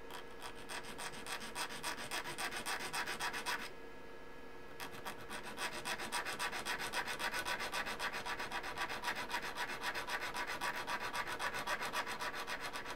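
Square needle file rasping back and forth across the corner of a ceramic IC package in quick strokes, about four a second, with a pause of about a second near a third of the way in. The file is making no headway on the hard ceramic.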